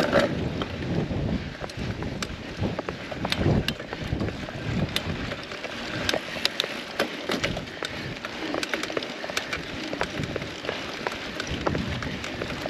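Mountain bike ridden over a dirt trail: steady tyre-on-ground noise with many sharp rattling clicks, under wind on the microphone.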